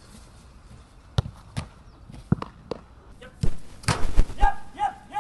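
Football being struck and caught in goalkeeper drills: single sharp thuds a few times, then a run of heavier thumps about three and a half seconds in as a keeper dives and lands on the grass.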